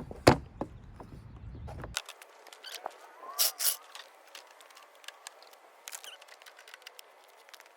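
Scattered sharp clicks and taps of plastic bumper parts being handled and fastened with zip ties, with a loud snap just after the start and two strong clicks a little past the middle.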